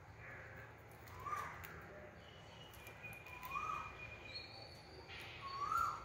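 Caged budgerigars calling: three short rising call notes about two seconds apart, the last the loudest, with a few thin steady whistle notes between them.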